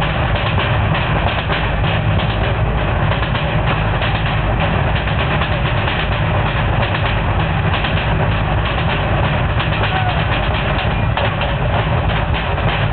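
Loud, fast, steady drumming over a heavy low rumble.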